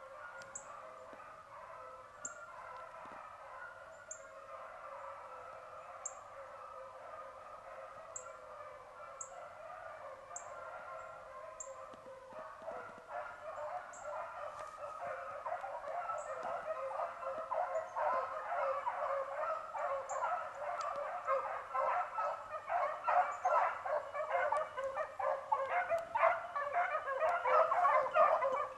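A pack of beagles baying as they run a rabbit's trail. The baying is faint at first and grows steadily louder from about halfway as the pack comes closer.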